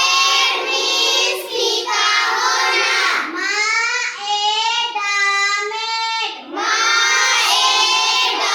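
A young child's voice singing, with long, drawn-out high notes that slide up and down.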